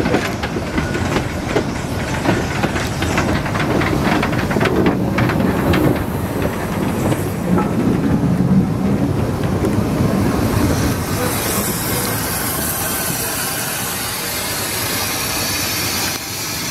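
Steam-hauled passenger train rolling slowly past close by, its wheels clicking over rail joints and points. About halfway through a steady hiss of steam comes in as the tank locomotive draws past.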